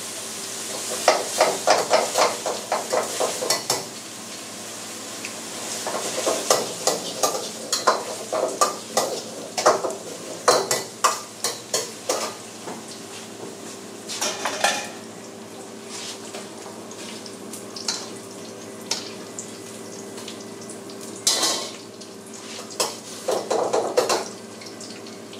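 A metal utensil scraping and clanging against a steel wok as food is stir-fried and sizzles. The clatter comes in quick runs of strokes through the first half, then thins to a few isolated clatters over a steady hum.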